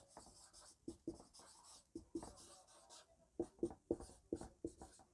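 Faint marker-pen strokes on a whiteboard, short separate scratches as a word is hand-written, coming thicker and faster from about three and a half seconds in.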